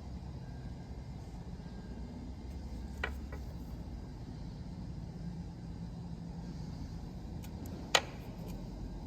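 Lexus GX460 cabin with a steady low road rumble while driving. Two short clicks come about three seconds in and a single sharp knock near the end: the unwanted knocking from the trunk area.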